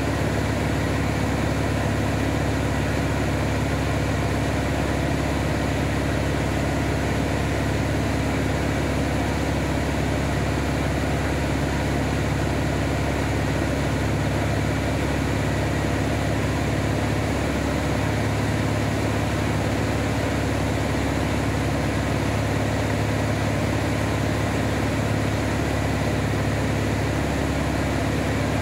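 Van's RV-7A light aircraft in flight: the steady drone of its piston engine and propeller, unchanging throughout, over an even hiss of rushing air.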